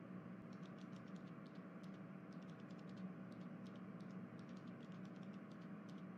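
Faint room tone: a steady low hum with many quick, light, irregular clicks over it, several a second, like faint typing.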